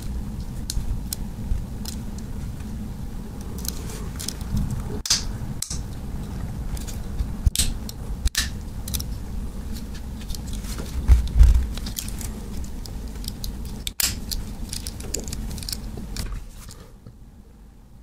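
Handling noise from a Swiss Army knife: irregular light metallic clicks and short scrapes over a low rumble, with a heavier knock about two-thirds of the way through. The noise falls away shortly before the end.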